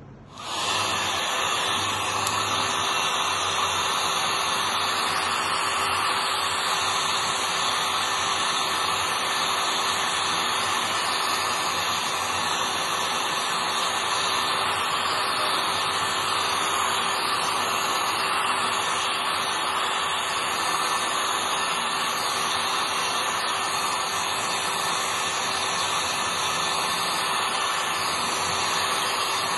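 Handheld hair dryer switched on about half a second in and blowing steadily with a constant hum, drying a wet human-hair bundle.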